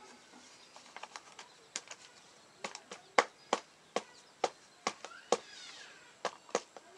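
An irregular run of sharp taps and crackles as hands press potting soil into a cut-down plastic container and handle it, the loudest about three seconds in.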